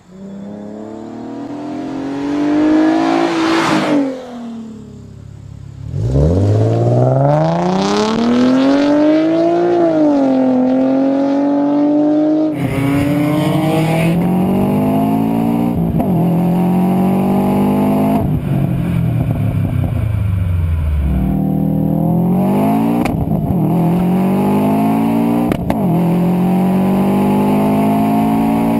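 A 2009 Infiniti G37's V6, fitted with high-flow catalytic converters, revs twice with its pitch climbing and then falling away. About twelve seconds in, a 2007 Subaru Impreza WRX STi's turbocharged flat-four takes over, accelerating hard with its pitch climbing and then dropping at each gear change, several times over.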